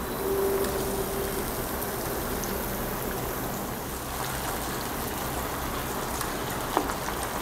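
Mustard gravy boiling on high heat in a frying pan, a steady bubbling, spattering hiss, as pieces of fish are laid into it.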